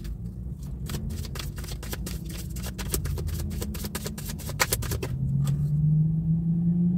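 Tarot cards being shuffled by hand: a quick run of light card clicks and flicks for about five seconds. After that a low steady hum comes up and grows a little louder.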